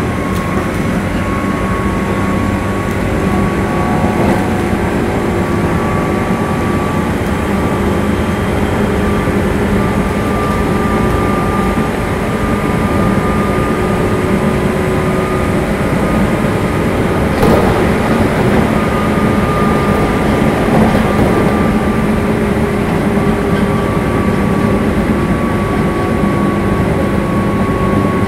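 Armature chopper control of a JR 201 series electric train whining at a steady high pitch over the rumble of the running gear, with one brief knock about two-thirds of the way through.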